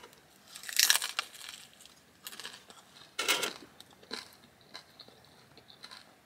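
Crisp fried taco shell crunching as it is bitten and chewed: a few loud crunches in the first four seconds, then fainter chewing.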